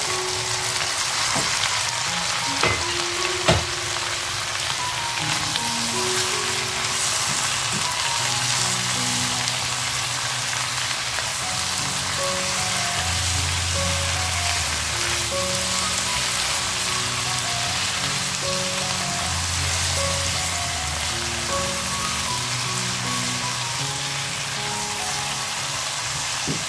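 Bitter melon and dried squid sizzling as they are stir-fried in a wok, with a steady hiss throughout. Two sharp knocks come about three seconds in.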